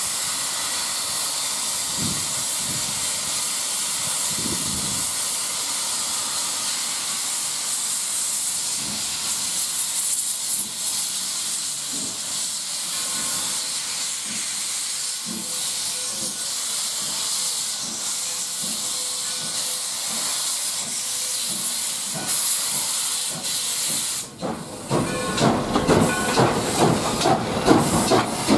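Steam locomotive No. 60 hissing steadily as it lets off steam. About 24 seconds in, the sound changes abruptly to a louder, uneven pulsing close to the locomotive's driving wheels and rods.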